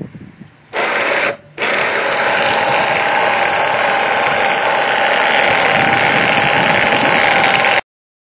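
Powered sailboat winch running under load as it hoists a person up the mast, a steady motor whine with a constant tone. It runs briefly, stops for a moment, then starts again about a second and a half in and runs steadily until it cuts off suddenly near the end.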